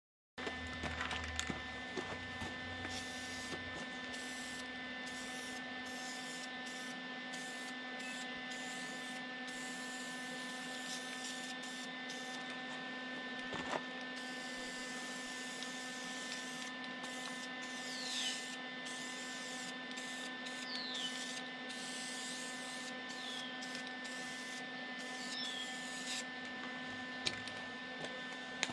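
Steady electrical hum from the welding machine. Over it, a high hiss from an aerosol spray-paint can comes and goes, and a few faint falling chirps sound in the second half.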